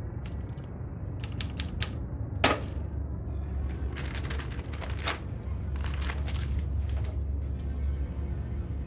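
Manual portable typewriter clacking in irregular clusters of sharp strikes, with one louder clack about two and a half seconds in, over a steady low hum.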